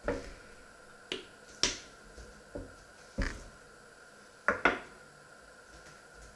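About seven short, sharp knocks and clicks of kitchen items being handled and set down on a wooden counter and cutting board, among them a cooking oil bottle and a metal spoon. The loudest is a quick pair about four and a half seconds in.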